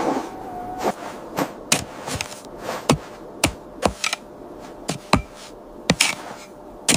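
Irregular sharp knocks, roughly one to two a second, over a faint steady music bed.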